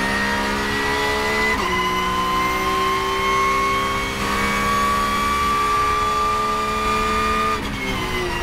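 Porsche 992 GT3 Cup's naturally aspirated flat-six at full throttle, revving above 8,000 rpm, heard from inside the cockpit. It upshifts from fourth to fifth about one and a half seconds in, climbs steadily in fifth, then drops in pitch near the end as the driver lifts off for braking.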